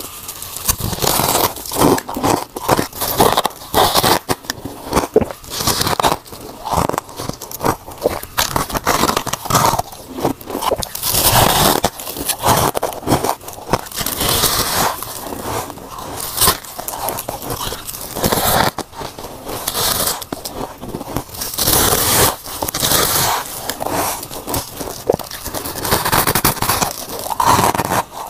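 Close-up biting and chewing of soft, powdery freezer frost: a dense, irregular run of crisp crunches and crackles, bite after bite, without a break.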